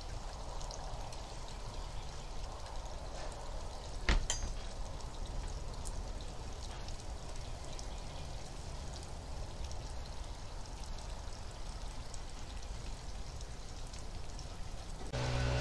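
Distant lawn equipment running steadily next door: a low engine hum under a steady whooshing hiss, with one sharp click about four seconds in. Music starts at the very end.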